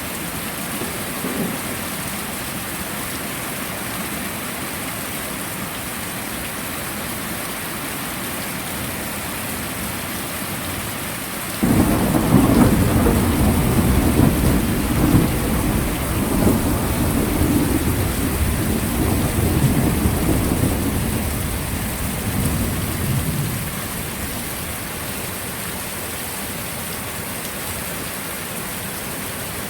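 Steady heavy rain. A little under halfway through, a thunderclap breaks in suddenly and rumbles low for about ten seconds before fading back under the rain.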